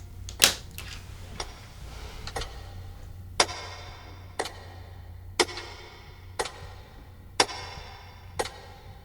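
Clock ticking steadily, about one tick a second, each tick with a short ringing tail, over a low steady hum. The first tick, about half a second in, is the loudest.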